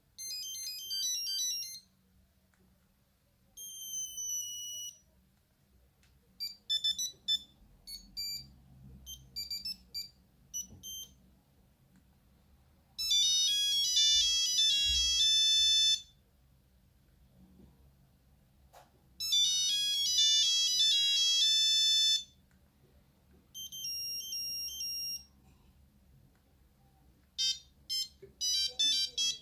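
Nokia 8210 mobile phone playing its built-in monophonic ringtones: a string of about seven short, high beeping tunes, each a second or three long, with short pauses between as one ringtone after another is played.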